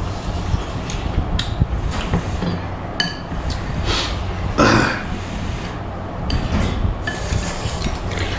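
A spoon and chopsticks clinking and scraping in a ceramic bowl of beef phở, with a loud slurp of noodles and broth about halfway through. A steady low hum runs underneath.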